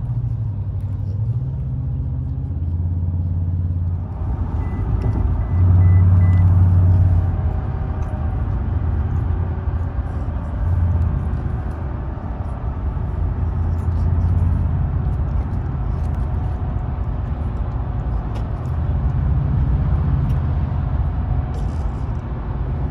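Car engine and road noise droning inside the cabin while driving, a low hum that shifts in pitch now and then.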